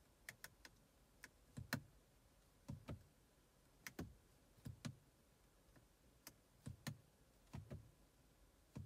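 Mazda Connect commander control knob and its buttons clicking as they are turned and pressed through the infotainment menus: irregular sharp clicks, many in quick pairs, each with a dull low knock.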